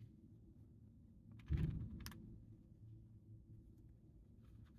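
Plastic 4x4 Rubik's cube handled and turned: a soft knock about a second and a half in, a couple of light plastic clicks just after, and a few faint clicks near the end.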